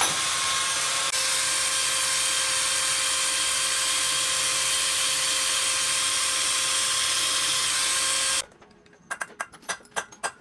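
A power tool running steadily with a loud hiss and a steady whine, stopping abruptly about eight seconds in, followed by a quick run of sharp clicks.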